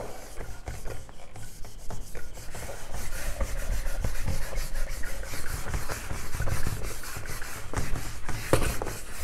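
Whiteboard eraser rubbing back and forth over a whiteboard, wiping off marker writing in uneven strokes.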